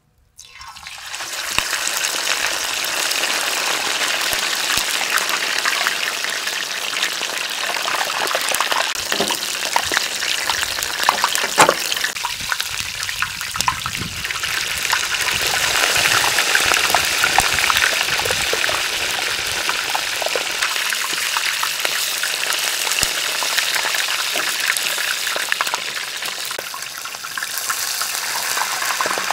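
Hot oil sizzling and crackling steadily as a whole ostrich leg deep-fries in a large wide pan. The sizzle starts suddenly about half a second in, as the meat goes into the oil.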